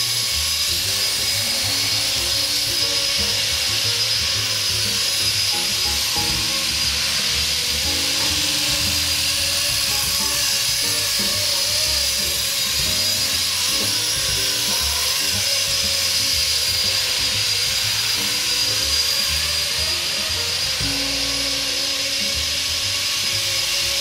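Electric Blade SR radio-controlled helicopter in sustained flight: a steady high motor and gear whine with rotor hiss, its pitch wavering slightly as it manoeuvres.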